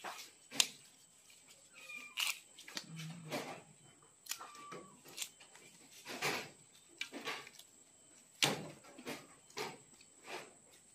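Fresh sabung leaves being snapped off their stiff stems by hand and dropped into a plastic basin: a run of short crisp snaps and rustles, about one a second. A few faint, brief, high squeaky tones sound in the background.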